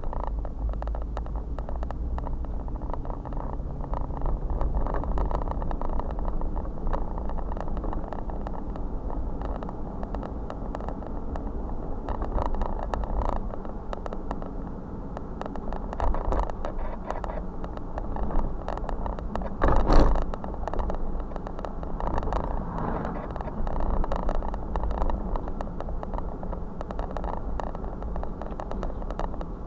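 A car driving slowly, heard from inside the cabin: steady low engine and tyre rumble with small rattles, and one sharp thump about twenty seconds in.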